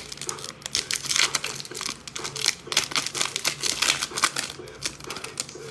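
Trading-card foil pack wrappers crinkling and cards being handled: a rapid, irregular run of sharp crackles and clicks.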